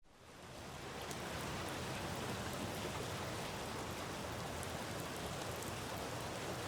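Steady rain falling, fading in over about the first second, with a few faint drop ticks.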